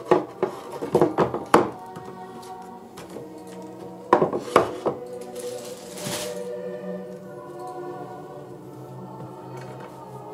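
An Elmax-steel knife chopping through rope onto a wooden board. There is a quick run of about five sharp thunks at the start and about four more some four seconds in, over steady background music with a choir.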